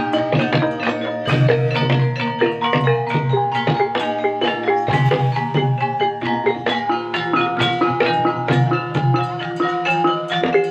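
Gamelan-style accompaniment for an ebeg (kuda kepang) horse dance: tuned struck percussion rings out in quick, dense notes over repeated low drum strokes.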